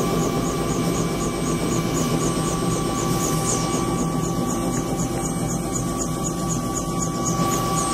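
Bell 206 JetRanger's Allison 250 turboshaft and rotor system running steadily, heard from inside the cabin: a constant high whine over a low hum, with a fast, regular pulsing.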